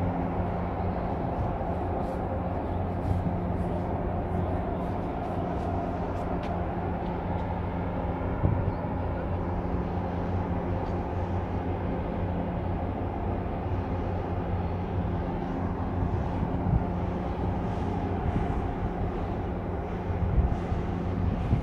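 Steady low drone of a marine engine, a constant hum at a few fixed low pitches, with a few brief louder knocks near the end.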